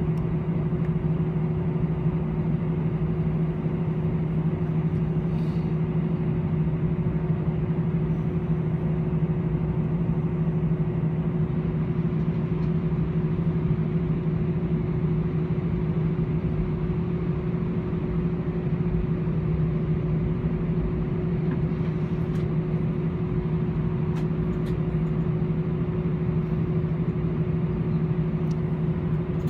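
Cabin noise of an Airbus A318-111 taxiing with its CFM56 engines at idle: a steady hum with a low drone and a fainter higher tone.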